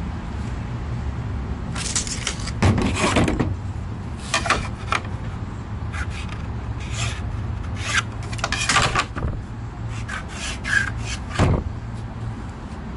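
A sheet of birch plywood being shifted and slid across a work surface, with irregular scraping and rubbing strokes of up to a second each, over a steady low hum.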